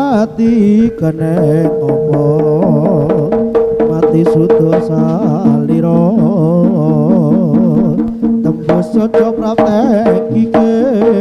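Javanese jaranan ensemble music: frequent hand-drum strokes under a wavering, ornamented melody line and a steady held tone.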